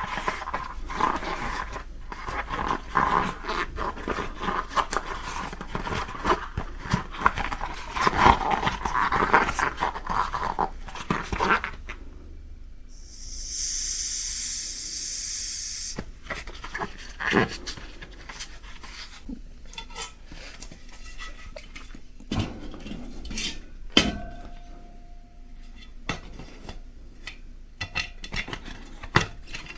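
Hands working a new inner tube and tire onto a small bicycle wheel rim: rubber rubbing and squeaking with many small clicks and knocks. About 13 s in there is a steady hiss lasting roughly three seconds, then scattered taps and knocks of parts being handled.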